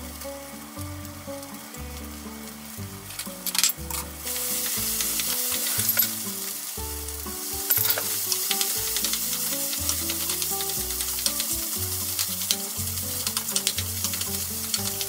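Ketchup rice sizzling in a frying pan as a wooden spatula stirs it, with scattered scrapes and taps of the spatula on the pan; the sizzle gets louder about four seconds in. Background music with low bass notes runs underneath.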